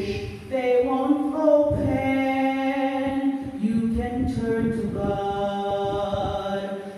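A woman singing a slow meditation song, holding long notes one after another.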